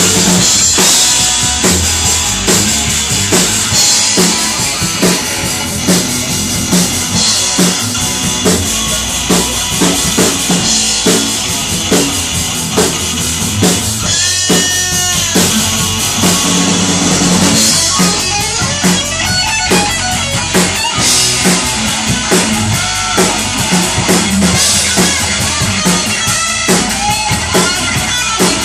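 Live amplified rock band playing an instrumental passage: drum kit keeping a steady beat under distorted electric guitars, with a bent, wavering high guitar note about halfway through.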